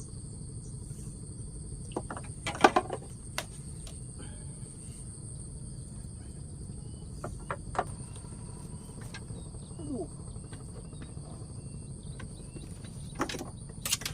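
Steady high-pitched insect chirring running on, with scattered sharp clicks and knocks; the loudest knocks come about two and a half seconds in and again near the end.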